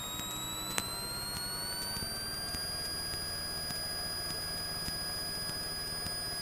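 Cessna 172M's four-cylinder engine heard through the cockpit intercom, its whine rising as power comes up for the takeoff after a touch-and-go, then holding steady. A single sharp click sounds a little under a second in.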